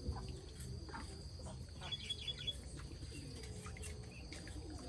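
Faint outdoor ambience of birds and insects: a steady high-pitched drone, a short rapid chirping trill about two seconds in, and a few light clicks.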